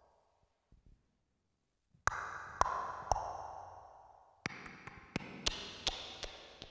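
Electronic hand percussion pad played with the fingers. After about two seconds of silence come three struck tones that ring and fade, then a quicker run of lighter taps that dies away near the end.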